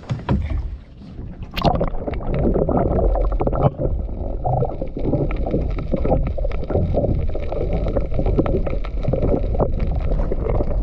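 Seawater heard through a microphone plunged under the surface: a sharp splash about a second and a half in as the camera goes in, then continuous muffled sloshing and bubbling of water against the camera.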